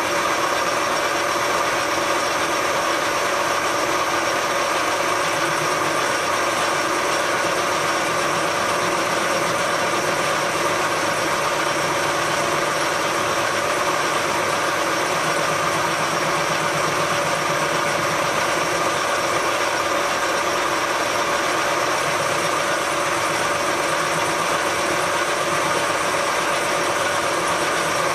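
Metal lathe running steadily with its chuck spinning while a boring bar bores out a bearing housing: a constant machine hum with several steady tones, unchanging throughout.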